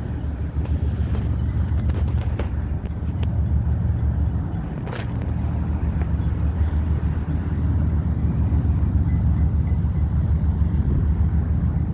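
A ship's engines run with a deep, steady drone while it manoeuvres, growing a little louder in the last few seconds, and wind buffets the microphone.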